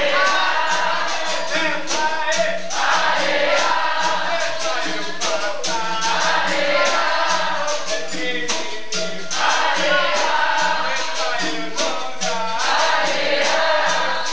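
Capoeira Angola roda music: berimbaus and pandeiro keeping a steady rhythm of strikes, under group singing.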